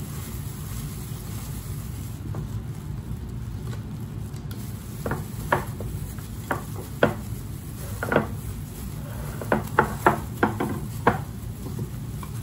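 Gloved hands tossing raw shell-on shrimp and parsley in a glass baking dish, with a run of sharp clicks and knocks as shrimp and hands strike the glass, starting about five seconds in. A steady low hum lies underneath.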